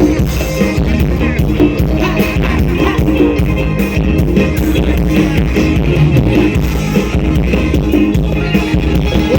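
Thai ramwong dance music playing loudly, with a steady beat of percussion.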